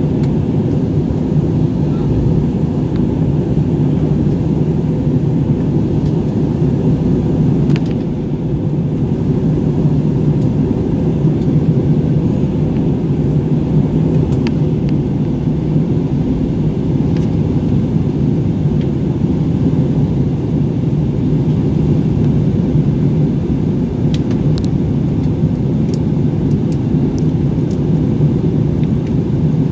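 Jet airliner cabin noise heard from a window seat: a steady, low drone of the engines and the airflow over the fuselage, with a few faint clicks near the end.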